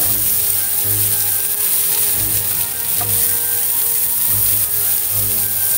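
Chopped bell peppers sizzling steadily in hot oil in a non-stick frying pan.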